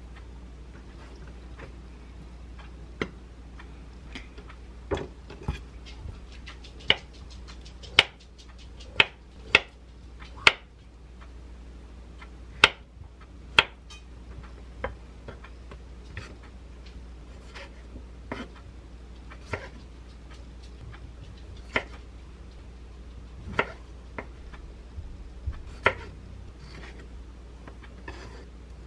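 Kitchen knife cutting soft avocado and cherry tomatoes on a wooden cutting board, giving single sharp knocks every second or two as the blade meets the board, over a steady low hum.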